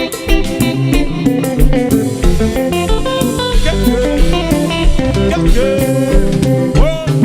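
Live konpa band playing an instrumental passage: electric guitar lines over bass and a steady drum-kit beat.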